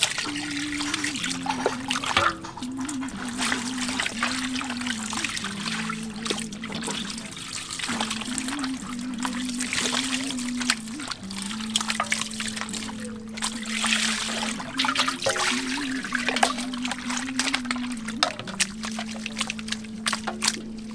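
Water poured from a plastic scoop splashing and trickling over raw pig intestines in a plastic basket as a hand rubs them clean, in irregular splashes. A steady wavering tone runs beneath.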